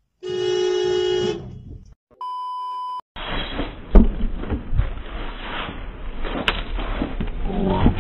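A car horn honks once for about a second, then a steady one-tone censor bleep. After that comes outdoor noise from a street basketball game, with sharp thuds of the ball on concrete.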